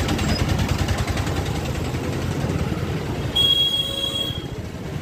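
Busy market-street hubbub of crowd and traffic noise. A vehicle horn sounds once for about a second, a little past the middle.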